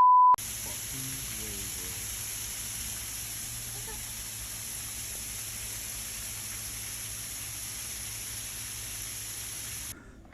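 A brief steady beep tone cuts off just after the start. Then a steady, even hiss like rain runs until it drops away near the end.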